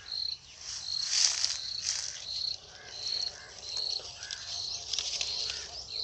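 Insect chirping steadily: a short high note repeating about every 0.7 seconds. Leaves rustle briefly and more loudly about one to two seconds in.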